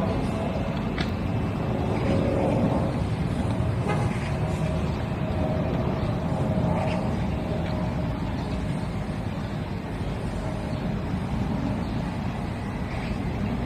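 Steady low rumble of vehicle engines, with a faint held tone in the middle and a couple of faint clicks near the start.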